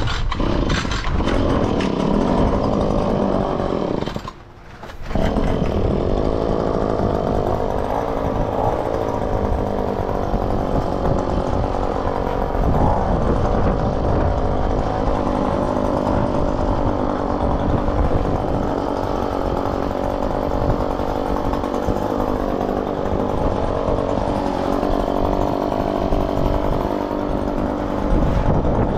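Leaf blower running at full power, blowing leftover sand infill off the pavers and artificial turf strips. About four seconds in it drops off for under a second, then picks back up.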